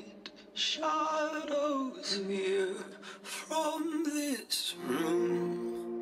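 The routine's recorded song: a single singer's voice in short phrases with a wavering pitch over sparse backing, with breathy hissing sounds between the phrases. About five seconds in, a steady held chord comes in under it.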